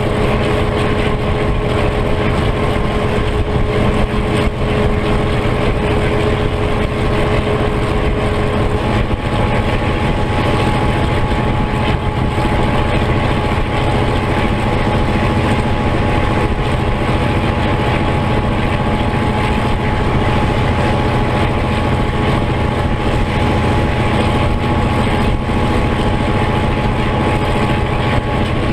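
NZR Da class locomotive's EMD 567 diesel engine running steadily under power while hauling its train, heard from on board. A steady whining tone over the engine sound shifts higher about nine seconds in.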